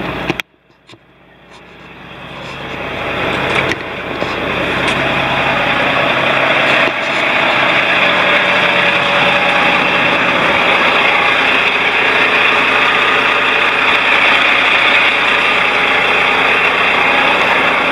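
Diesel engine of a loaded log truck idling steadily, heard up close beside the cab. The sound drops out sharply about half a second in and builds back up over the next few seconds.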